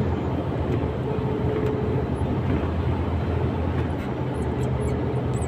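KamAZ truck's diesel engine and road noise heard inside the cab while driving on a fairly smooth road: a steady low rumble with a few faint ticks and a thin faint tone about a second in and again near the end.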